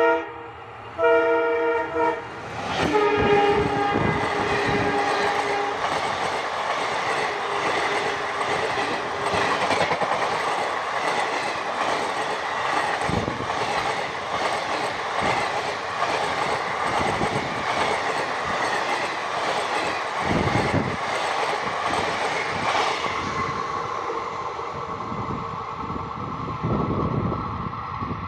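Indian Railways locomotive horn sounding as a passenger train approaches, a short blast and then a longer one, followed by the train running through at speed: a loud, steady rush of wheels on rail with clattering over the rail joints that fades after about 23 seconds.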